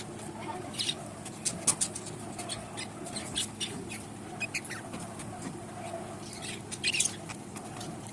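Pet budgerigars chirping in short, scattered calls and clicks, several at a time.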